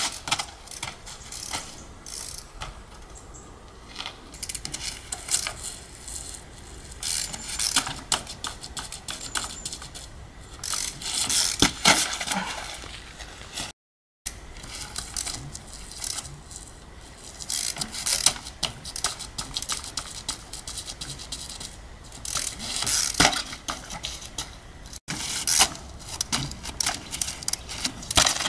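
Trials bike being hopped and pedalled onto sandstone blocks: irregular knocks and clacks of tyres, rims and frame landing on the rock, mixed with the clicking of the rear freewheel ratchet.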